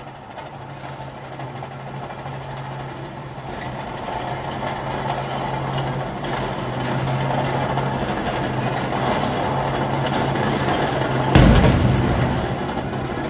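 Military bulldozer's diesel engine running steadily and growing louder. About eleven seconds in comes one loud, heavy bang.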